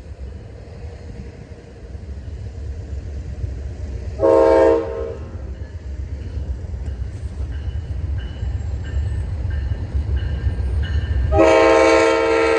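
Approaching diesel locomotive sounding its multi-note air horn: a short blast about four seconds in, then a long blast starting near the end. Under the horn, the low rumble of the train grows louder as it draws near.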